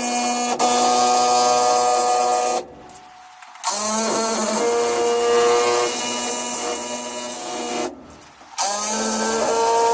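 Cordless power driver (drill/impact driver) driving lag bolts into wall studs in three runs of a few seconds each. Each run opens with a quickly rising whine that settles into a steady pitch, then stops abruptly before the next.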